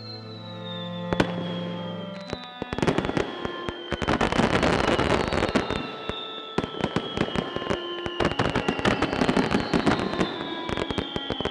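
Fireworks crackling and popping densely, with a high falling whistle repeating every few seconds; held music notes sound under the first couple of seconds.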